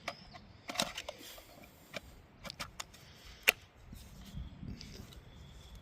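A string of sharp plastic clicks and knocks from handling a mini battery chainsaw's battery pack, the loudest about three and a half seconds in.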